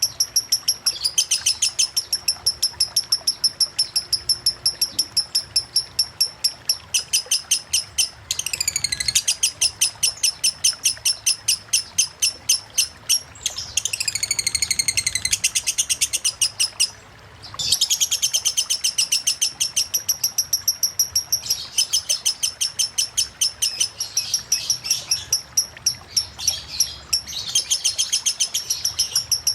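Lovebird singing a long, fast ticking chatter of high-pitched notes, about eight a second, the unbroken 'konslet' style of song, with one brief pause about two-thirds of the way through.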